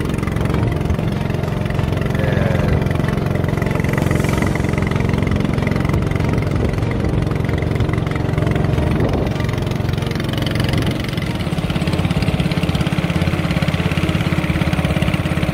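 A small fishing boat's engine running steadily at speed over a rush of wind and water; about eleven seconds in the engine note changes to a more even, pulsing beat.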